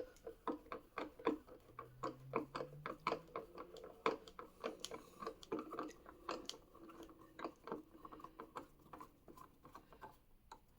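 Security Torx screwdriver turning a long screw out of the plastic base of a booster-seat armrest: a run of small, irregular clicks and ticks. The screw is not very tight.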